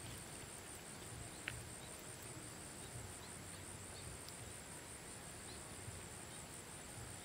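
Quiet outdoor ambience: a steady high-pitched, finely pulsing insect trill, with a low uneven rumble underneath and a few faint clicks.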